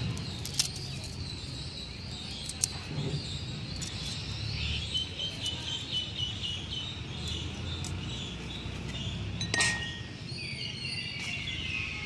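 Small birds chirping in the background, with three sharp clicks as garlic cloves are peeled and cut against a boti blade.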